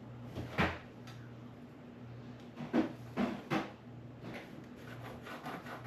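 A few soft knocks and scrapes, then a quick run of light scratching strokes near the end, from marking on the wall by hand while tracing a laser mark. A faint steady hum sits underneath.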